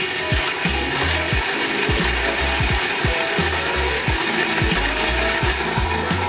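Rok GC hand grinder grinding espresso beans: a continuous gritty crunching and rubbing of beans being crushed between the burrs, over background music with a steady bass beat.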